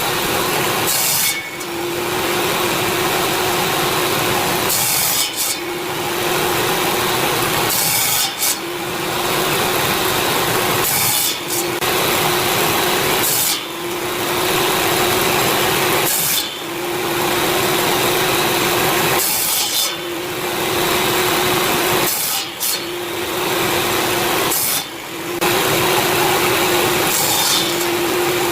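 Power tool cutting into wood in repeated passes of two to three seconds each, the sound dipping briefly between passes.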